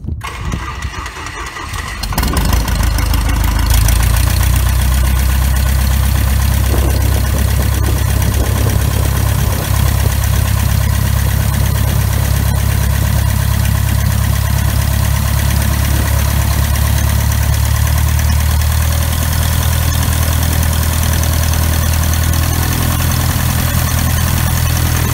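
Grumman Cheetah's four-cylinder Lycoming O-320 piston engine, running uncowled, starting up: a brief uneven cranking and catch, then from about two seconds in it runs steadily with its propeller turning.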